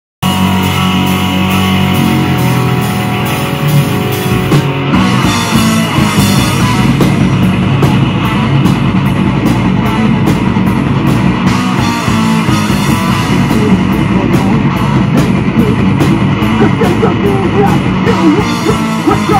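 Live metal band playing an instrumental passage on electric guitars, bass and keyboard. Held low notes open it, and the drum kit comes in with a steady beat about five seconds in.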